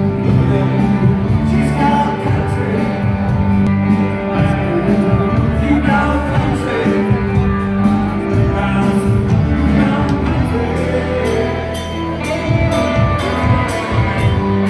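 Live band playing amplified music, with a singer, electric guitars and a steady bass line.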